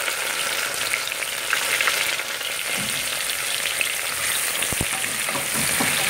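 Sliced onions sizzling and crackling in hot coconut oil and ghee in a pressure cooker, stirred with a wooden spatula. There is one sharp knock about five seconds in.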